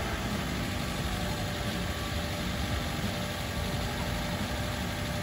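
2019 Suzuki Swift's engine idling steadily.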